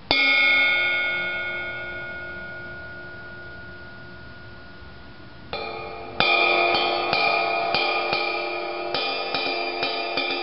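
Pearl 20-inch CX ride cymbal struck once with a drumstick and left to ring, the ring fading over about five seconds. A light tap follows, then from about six seconds in it is played in a steady ride pattern of about three strokes a second.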